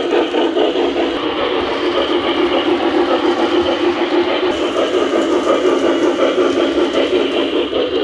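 O-gauge model 2-8-2 steam locomotive running on three-rail track, with steady, fast, even chuffing over the hum of its motor and rolling wheels.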